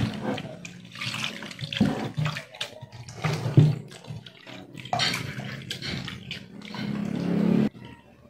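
Hands swishing and rubbing raw shrimp in a bowl of water, with irregular splashing and sloshing. Near the end a steadier run of water stops suddenly.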